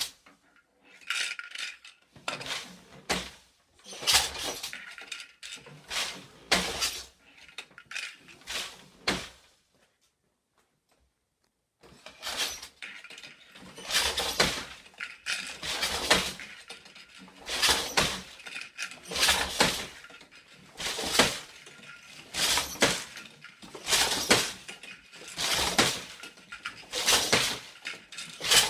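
An 8-harness floor loom being woven on: a run of sharp clacks and knocks, about one a second, as the shuttle is thrown across and the beater packs in the weft. A pause of about two seconds comes near the middle.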